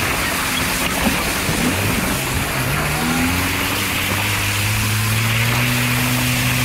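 UAZ Bukhanka van driving through wet slush: the engine running under a steady hiss of tyres spraying slush and water. The engine note dips and then climbs again about two to three seconds in.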